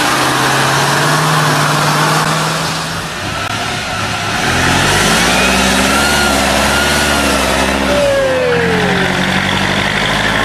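Heavy trial-truck diesel engines working hard off-road: one runs steadily, and after a change a few seconds in another revs up and down under load. A brief falling whine sounds about eight seconds in.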